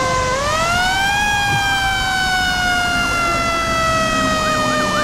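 Fire truck siren wailing: the pitch rises over about a second, then falls slowly and steadily.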